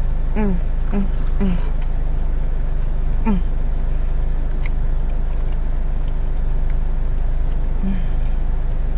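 A woman's short 'mmm' sounds of enjoyment while eating a cookie, four close together and one more near the end, each dropping in pitch. Underneath is the steady low rumble of an idling car heard from inside the cabin.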